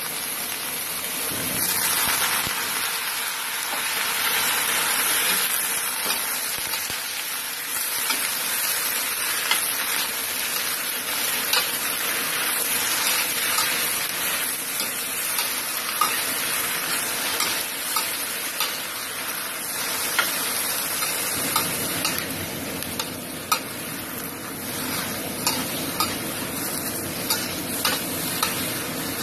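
Pechay, mushrooms and egg sizzling in hot oil in a stainless steel wok as they are stir-fried, with a spatula scraping and knocking against the wok in short sharp ticks that come more often near the end.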